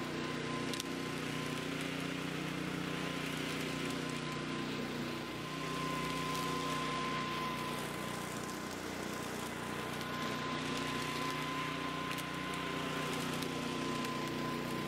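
Flymo hover mower's small petrol engine running steadily under load, with a steady high whine over it and a rushing hiss of air and cut grass and leaves.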